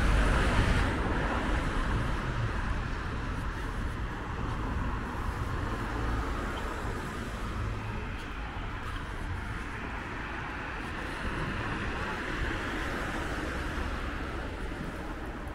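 Cars passing on a city street, with steady traffic and tyre noise. One car goes by loudest at the start and fades over the next second or two, and the traffic swells a little again a couple of seconds past the middle.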